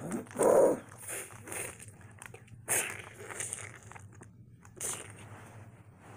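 A boy's mouth-made growls and roars for toy big cats in a fight: the loudest is about half a second in, followed by a few shorter, breathier snarls.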